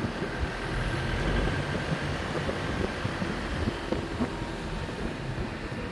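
Car driving along a rough, cracked road: a low rumble of engine and tyres, with many small knocks and rattles from the uneven surface.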